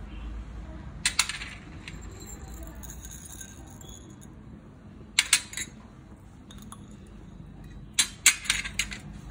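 Glassware clinking: a small glass bowl knocks against a glass mixing bowl in three brief clusters of sharp clinks as salt, peppercorns and chopped green chillies are tipped into ground urad dal batter.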